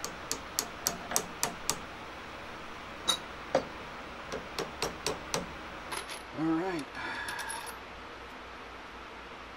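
A hammer tapping pins into a stack of laser-cut steel plates: a run of sharp metallic taps, about three a second for the first two seconds, then scattered single taps. A brief hummed voice sound comes a little past the middle, followed by a short rustle.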